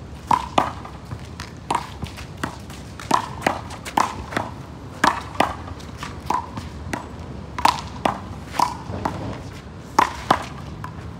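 Rubber handball smacked by hand and bouncing off a concrete wall and court: a string of sharp smacks, one or two a second at an uneven pace, each with a short ring.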